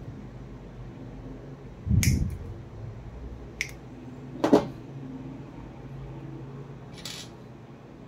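Hands handling small plastic RJ45 plugs and cable: a soft thud about two seconds in, a few sharp light clicks, the loudest about four and a half seconds in, and a short rustle near the end.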